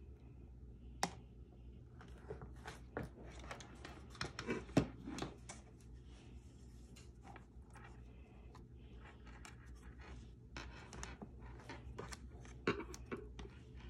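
Rustling, scratching and light taps of hand handling as a crocheted panel is laid and pressed onto the hot-glued glass of a wooden picture frame, with a few sharp clicks, the loudest about five seconds in.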